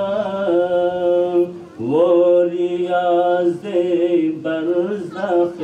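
A man singing a naat, an Urdu devotional poem, solo through a PA microphone. He holds long, ornamented notes, with a short breath about one and a half seconds in before a rising new phrase.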